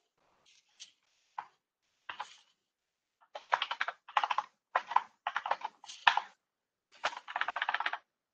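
Typing on a computer keyboard: a few separate keystrokes at first, then quick bursts of keystrokes from about three seconds in.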